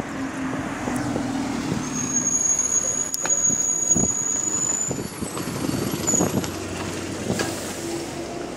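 Single-deck bus pulling in and stopping, its engine running low and steady, with a long high steady squeal for about three seconds as it draws up and several sharp clunks around the middle.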